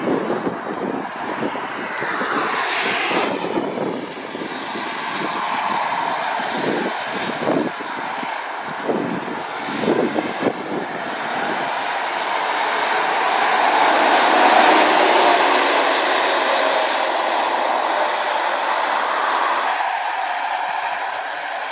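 Road traffic on a wet road: lorries and cars going by with a steady hiss of tyres on wet tarmac over engine noise. It swells to its loudest as a lorry passes about two-thirds of the way through, then eases near the end.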